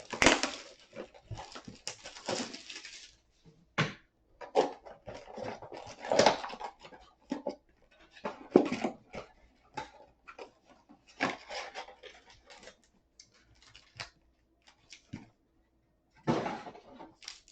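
Cardboard blaster box being torn open and its foil-wrapped card packs pulled out and handled: irregular crinkling, tearing and rustling in short bursts with brief pauses.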